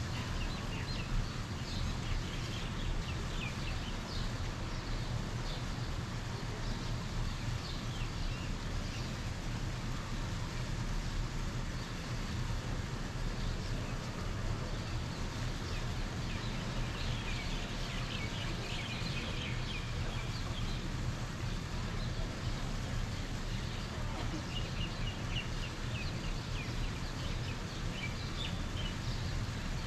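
Many small birds chirping in short, scattered calls, busiest about two thirds of the way through, over a steady low rumble of outdoor background noise.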